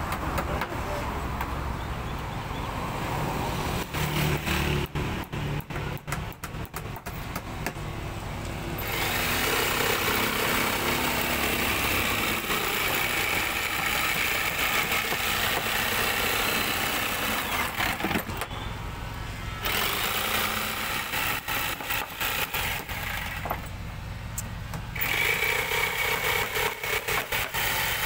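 Corded electric jigsaw sawing a curve through a wooden tray blank: irregular short runs at first, then running steadily from about nine seconds in, stopping briefly twice near the end.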